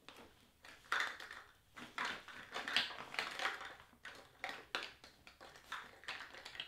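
Rummaging through sheets of cardstock: irregular rustling, flicking and tapping of paper as the sheets are leafed through.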